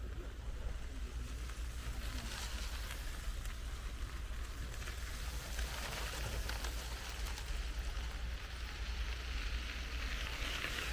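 Wind rumbling steadily on the microphone, with a hiss that grows louder from about two seconds in and again near the end.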